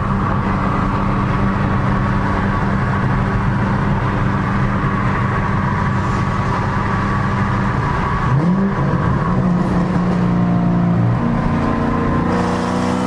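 2012 Shelby GT500's supercharged 5.4-litre V8, with an off-road X-pipe and resonator delete, running at a steady pitch, then revving up sharply about eight seconds in and pulling hard with rising pitch near the end.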